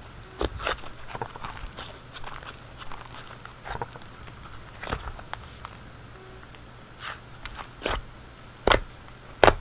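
Hands squishing and poking a soft butter slime, making irregular sticky clicks and pops, with two louder pops near the end.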